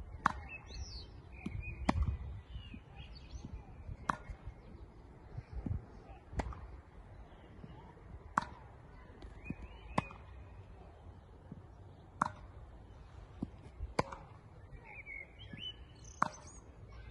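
Tennis rally: a ball is struck back and forth with sharp racket hits about every two seconds and fainter bounces in between. Birds chirp near the start and again near the end.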